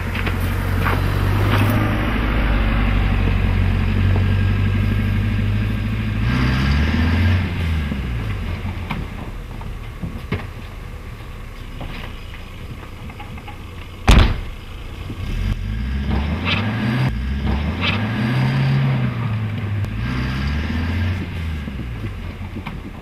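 Small Suzuki Jimny 4x4 engine running, steady at first, then revved up and down several times. A single sharp bang comes about halfway through.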